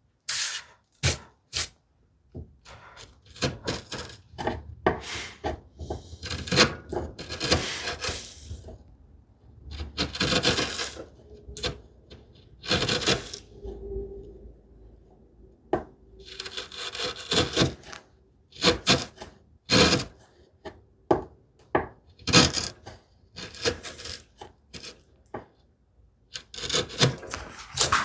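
A chisel paring and chopping a hinge mortise in cherry wood by hand: scraping cuts of the blade through the wood, some a second or two long, mixed with sharp taps and knocks at irregular intervals.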